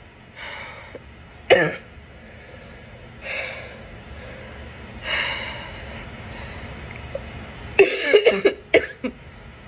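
A sick person's barking cough: one sharp cough about one and a half seconds in, noisy breaths in between, then a quick burst of several coughs near the end.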